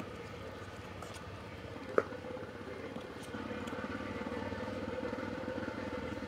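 Hand-turned stone wet grinder working soaked raw rice into batter: a low, steady rumble that grows a little louder after about three seconds, with one sharp knock about two seconds in.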